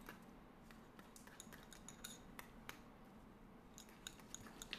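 Small wire whisk beating cream cheese in a glass bowl: faint, irregular clicks and taps of the wires against the glass.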